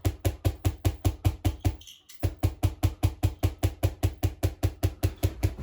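Solid-state Tesla coil (SSTC) making a weird chirping noise: short, regular pulses at about five to six a second, breaking off briefly about two seconds in. The chirping comes on when the primary-to-secondary coupling is too high, at around 35–40% on the variac, a condition in which the coil flashes over easily; the builder suspects the secondary-base current-transformer feedback is oscillating at a harmonic.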